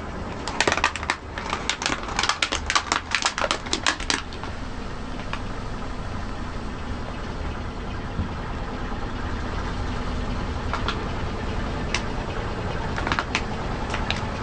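Rapid, dense crackling and crunching for about four seconds as a car tyre rolls over and crushes brittle objects, over the low, steady running of the car's engine. A few single cracks follow near the end.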